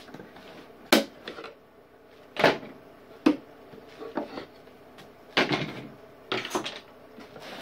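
Quick-release bar clamps and plywood trunnion parts being handled and unclamped on a workbench: a series of separate sharp knocks and clatters, the loudest about a second in and again about two and a half seconds in.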